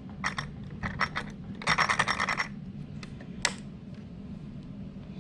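Scratchy, clattering handling noise in quick bursts, as of hard parts being moved and rubbed, then a single sharp click about three and a half seconds in, over a low steady hum.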